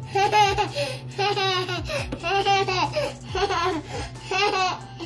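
Toddler girl laughing in a string of short, high-pitched bursts, about one a second.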